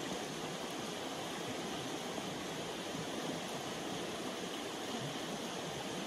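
A shallow river running over stones: a steady, even rush of flowing water.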